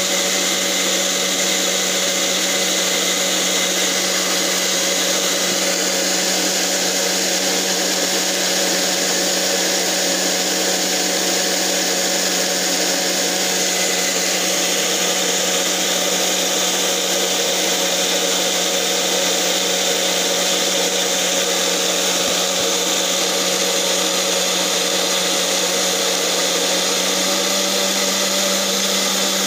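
Otis 3-speed personal blender motor running steadily, blending a jar of smoothie, with an even hum and whir.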